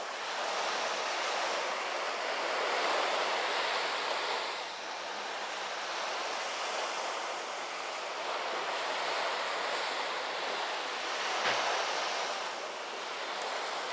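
Waves washing on the shore: a steady hiss of surf that swells and eases every few seconds. A single brief knock sounds late on.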